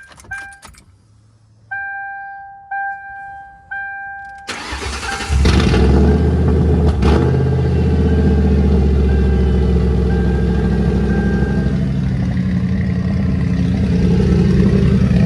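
Dashboard warning chime dinging three times, about a second apart, then the 2003 Ford Crown Victoria P71's 4.6-litre V8 cranking, catching and settling into a loud, steady idle on a cold start. The engine has a cylinder 6 misfire, which the owner puts down to a spark plug whose threads need redoing.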